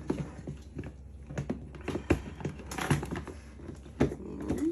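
Irregular clicks, knocks and light rustling as the chopper's loose blades and accessories are handled and unpacked, with a few sharper knocks.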